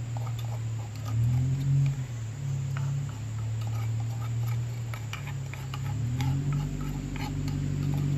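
Light, irregular clicks and taps from a small wooden cup being tapped over a metal pan, over a steady low hum that steps up in pitch about a second in and again about six seconds in.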